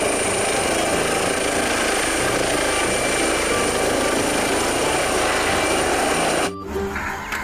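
Eurocopter EC135 air ambulance helicopter hovering low at close range: a fast, steady rotor chop under a high turbine whine. The sound cuts off suddenly near the end.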